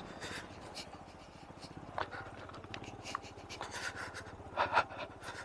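Single-cylinder motorcycle engine running at low speed on a rough, broken mountain track, with scattered clicks and rattles and a pair of sharper knocks about four and a half seconds in.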